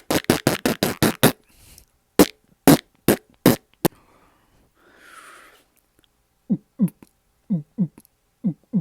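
Mouth sound effects: a fast run of sharp pops, about seven a second, for the first second or so, then four single pops spaced about half a second apart. A short hiss follows about five seconds in, then short blips that drop in pitch, coming in pairs.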